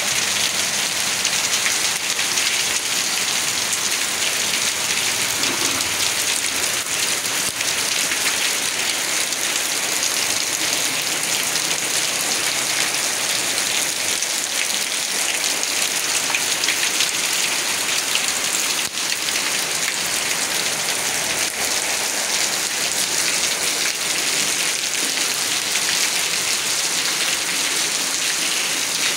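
Rain falling steadily on wet brick paving: an even, unbroken hiss of drops.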